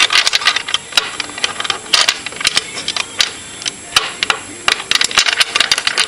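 Quick, irregular metal clicks and rattles of a WordLock combination padlock being handled and fitted through a steel hasp, the shackle knocking against the hasp.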